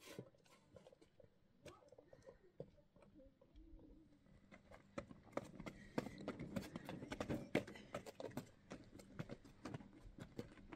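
Footsteps and a metal wheelbarrow rolling over rough, stony dirt, with irregular clicks and clatter. It is sparse at first and grows busier and louder from about halfway through.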